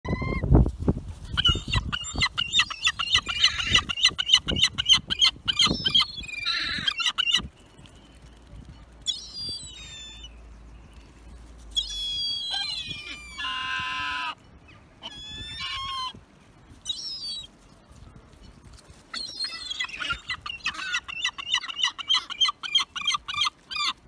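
Young gulls squawking: fast runs of high, repeated calls for the first seven seconds and again over the last five, with scattered single calls in between.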